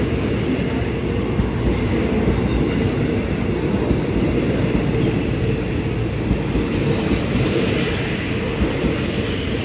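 Passenger coaches of a Thai rapid train rolling past on departure: a steady rumble of steel wheels on the rails.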